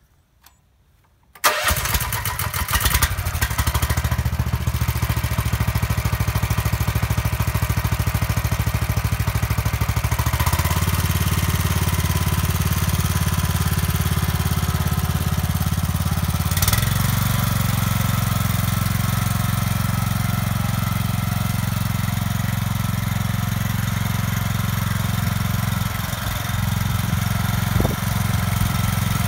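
A two-wheel walking tractor's small petrol engine starts abruptly about a second and a half in, then runs steadily under load as the tractor pulls a row cultivator through the soil. Its note shifts twice, about a third of the way through and again past halfway.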